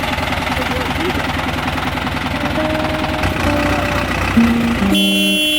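A vehicle engine running steadily with an even, fast pulse. Music comes in partway through and takes over near the end.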